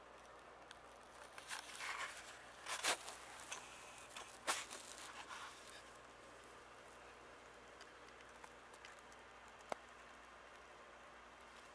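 Cannabis leaves and small shoots being pulled and torn off the stems, with rustling and crinkling of the foliage and a few sharp snaps, the loudest about three and four and a half seconds in. One more click near the end.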